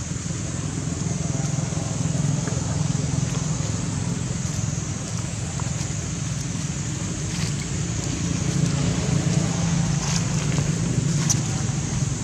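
Steady outdoor background noise: a low rumble with a thin high hiss above it, and a few faint clicks near the end.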